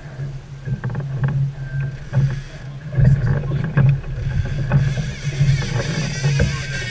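A sportfishing boat's engine running with a steady low drone that swells and eases, with scattered short knocks on deck.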